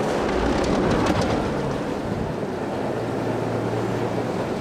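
Diesel engine of Beaufort & Morehead switcher locomotive 1860 running: a rough, steady rumble, loudest in the first second or so, with a steady low hum joining it from about halfway to near the end. The engine has just been returned to running order after years out of service.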